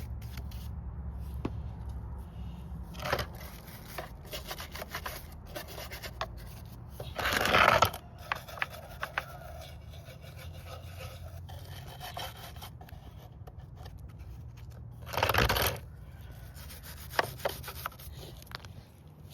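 A small stiff brush scrubbing grime and loose paint off an old chainsaw's diesel-soaked housing, in many short scratchy strokes. Two louder rasping strokes come about seven seconds in and about fifteen seconds in.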